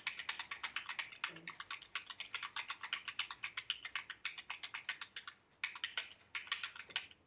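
Typing on a computer keyboard: a quick, steady run of key clicks, broken by two short pauses near the end.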